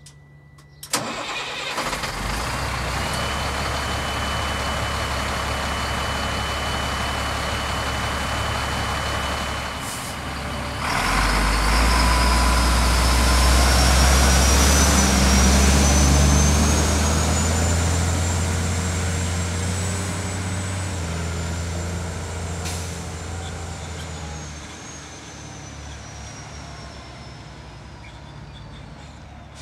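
The CAT 3126 diesel engine of a 2002 Freightliner FL70 bucket truck starts about a second in and idles. Then the truck pulls away, passes close by, and fades into the distance.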